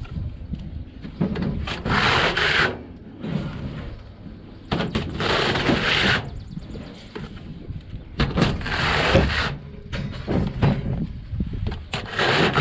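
Trowel scraping mortar up over wire lath as a parge coat is spread: four long scrapes, each about a second, roughly three seconds apart.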